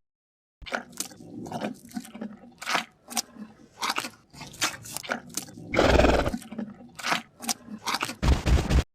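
Crunching, chewing-like sound effect for Centrosaurus: an irregular run of sharp, crisp crunches and cracks starting about half a second in, a louder rough burst around the middle, and a fast cluster of crunches that cuts off suddenly near the end.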